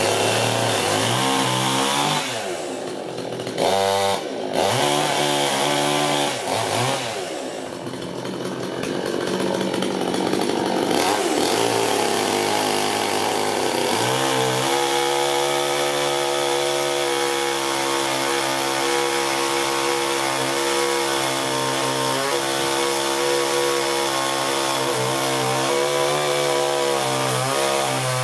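A two-stroke chainsaw revving up and down, its pitch rising and falling, for the first ten seconds or so. From about 14 s it runs at a steady, lower pitch as it cuts through a bundle of logs held in a sawhorse jig.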